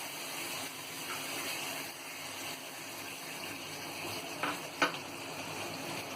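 Mushroom sauce and water cooking in a hot frying pan: a steady hiss, with two light knocks a little after the middle.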